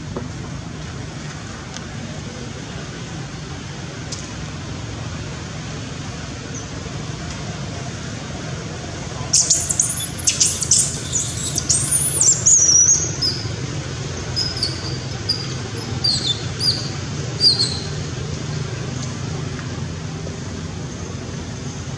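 Long-tailed macaques giving a burst of shrill squeals about halfway through, thinning out into short, falling chirps for several seconds, over a steady low background hum.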